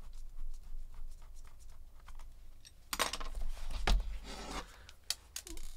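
Faint, quick ticking of a precision screwdriver turning the last bottom-case screw on an aluminium MacBook Pro. About three seconds in come rubbing and a few sharp knocks as the laptop's metal case is handled and turned over on the table.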